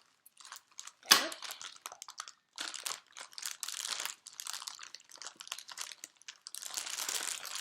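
Packaging being unwrapped by hand: irregular crinkling and rustling, with a few sharper crunches, turning into steadier, denser rustling near the end.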